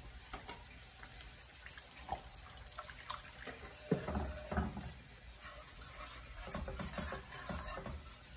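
Wire whisk stirring bacon roux in a cast iron skillet, scraping and clicking against the iron as chicken broth is added, the liquid sloshing as it is whisked into gravy. A sharp knock of the whisk on the pan comes about four seconds in.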